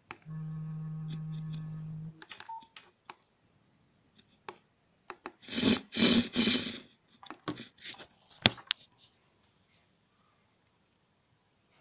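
Handling and key presses on a basic keypad mobile phone on a table: a low steady buzz for about two seconds, then a run of small keypad clicks, a loud rough rubbing noise around the middle, and one sharp click a little later.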